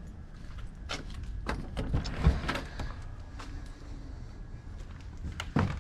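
A door being opened and walked through: several short clicks and knocks, most of them in the first half, over a low rumble of footsteps and handheld-camera handling.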